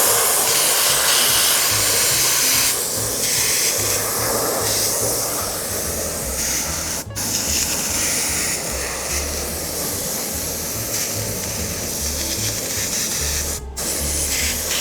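Spray adhesive hissing as it is sprayed into splits in a seat foam cushion to glue them back together, cutting off briefly twice, about halfway and near the end.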